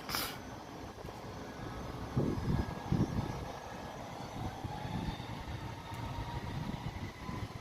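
Airplane engine running in the distance, with an irregular low rumble and a faint whine that rises slowly in pitch over the last few seconds. A brief hiss sounds right at the start.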